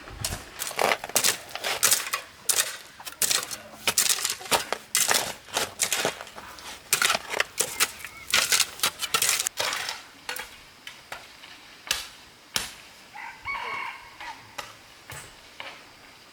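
Rapid, irregular sharp knocks and clicks, dense for about the first ten seconds and then sparser. A short call from a chicken or similar fowl comes near the end.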